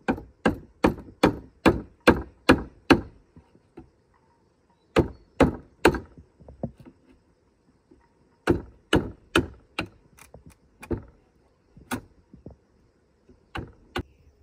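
Hammer striking a chisel as it cuts into a wooden plank: runs of quick blows, about two to three a second, with short pauses between the runs and a few single blows near the end.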